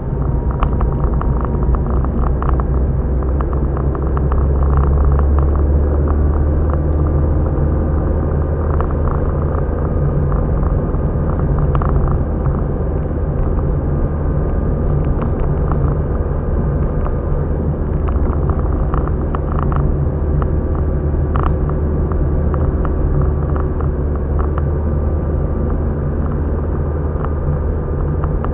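Car driving along the highway, heard from inside the cabin: a steady low rumble of engine and road noise.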